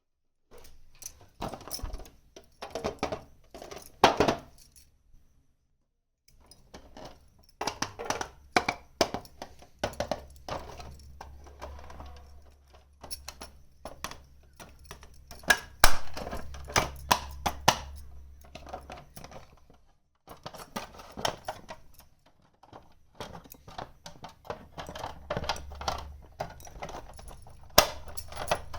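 Small plastic toy kitchen pieces clicking, clattering and rattling as they are handled, unpacked and set down, in several short bursts with abrupt cuts to dead silence between them.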